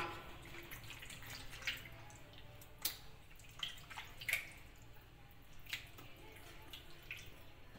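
Pieces of raw chicken being put into a bowl of yogurt-and-spice marinade: a few faint wet taps and plops spread over several seconds, the clearest about three seconds in.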